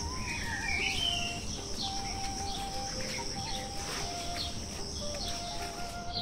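Birds chirping in short repeated calls over a steady high insect drone, with a slow melody of held notes playing through it.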